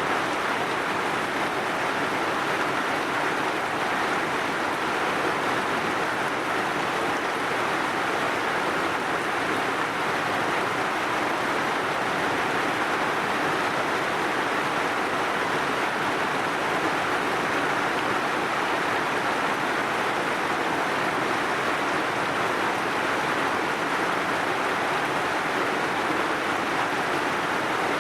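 Heavy rain falling steadily, a dense, even hiss with no separate drops or thunder standing out.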